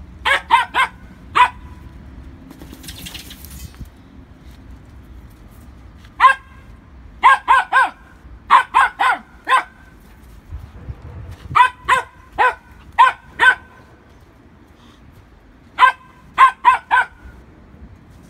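Fox terrier barking: about twenty short, high-pitched barks in quick bursts of several at a time, with pauses of a few seconds between bursts.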